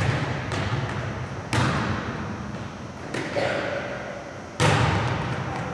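Volleyball being struck by hands and forearms during a serve-receive passing drill. Three sharp slaps, the first and last loud and a softer one between, each ringing on in the large gym's echo.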